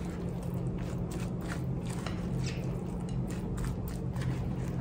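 Silicone spatula folding and scraping a moist, crumbly crab-and-cracker stuffing around a glass mixing bowl: soft, irregular squishes and scrapes. A steady low hum runs underneath.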